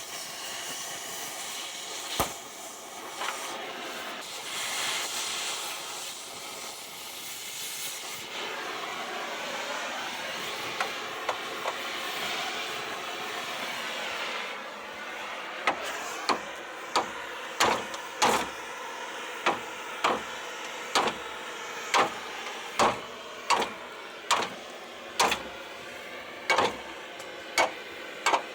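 Steady hissing of a cutting torch for about the first half. About halfway through come regular hammer blows on steel, roughly one a second, going on to the end.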